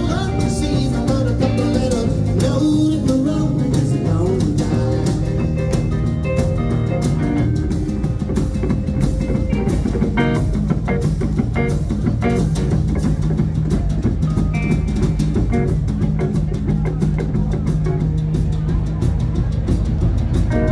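Live band playing at full volume: electric guitars over a drum kit keeping a steady beat.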